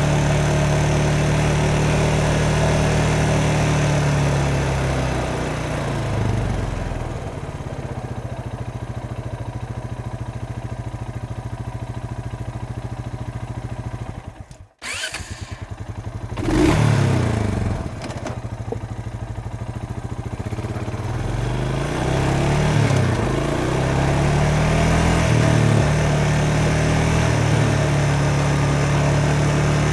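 Motorcycle engine idling steadily. It slows to a lower idle, cuts out for a moment about halfway through, then catches again with a quick rev. The idle climbs back up to its earlier steady pitch near the end.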